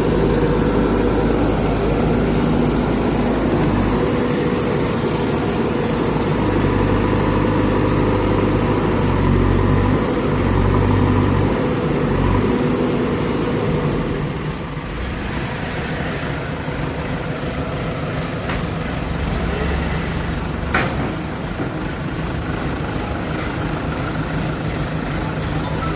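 Backhoe loader's diesel engine running steadily, its sound shifting and dropping slightly about halfway through, with a single short knock near the end.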